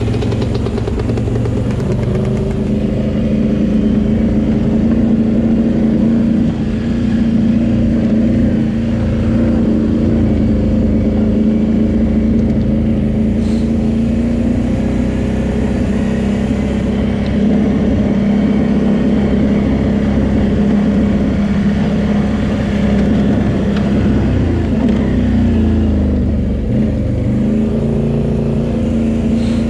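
Can-Am Renegade 800 quad's V-twin engine running steadily under way on a dirt trail, its pitch rising and falling a little now and then.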